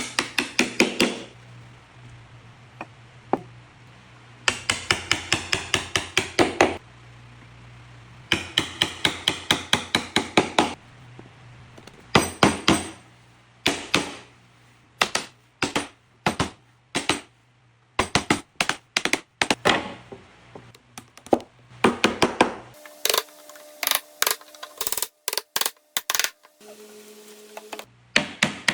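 Hammering on wood: quick runs of sharp strikes in bursts of a second or two, then single, spaced-out knocks.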